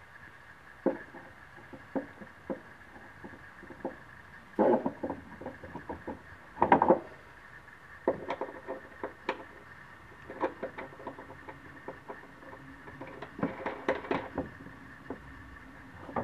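Knob screws being hand-tightened through the plywood panel of a wooden scorer's table to join two sections: irregular light knocks, taps and scrapes of hands and fittings on wood, with louder clusters of knocks about four and a half and seven seconds in.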